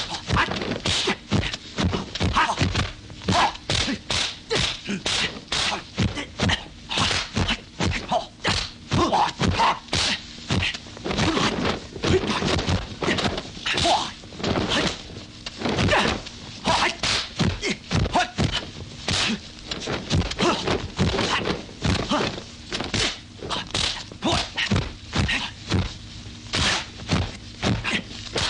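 Kung fu film fight sound effects: a fast, unbroken run of dubbed punch and kick impacts, sharp whacks and dull thuds, several a second.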